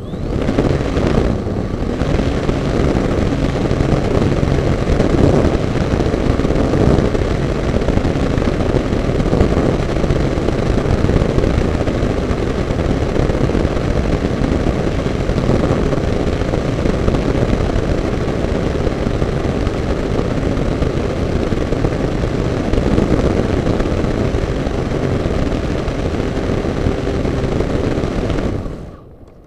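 Onboard sound of a radio-controlled model motor glider's propeller and motor running steadily at full power through the launch and climb, with wind rushing past the camera. The motor cuts off near the end.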